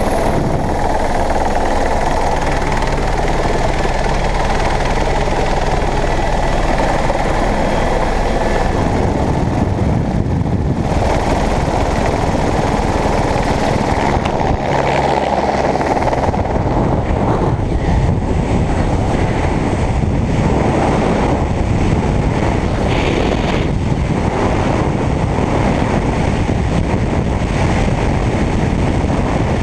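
AS350 helicopter's turbine and rotor running steadily, mixed with heavy wind rushing past the open door. About halfway through, the helicopter's low hum drops away and only the rush of freefall wind buffeting the microphone remains.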